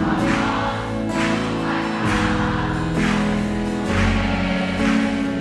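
Live worship band music: held chords over a steady beat, with voices blending in like a choir.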